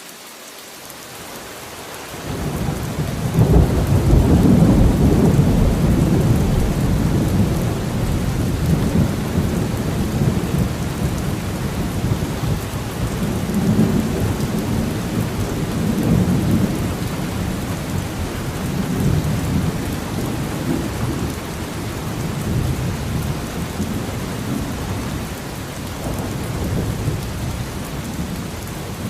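Steady rain with a long rolling thunder rumble that swells in about two seconds in, is loudest soon after, and keeps rolling in waves.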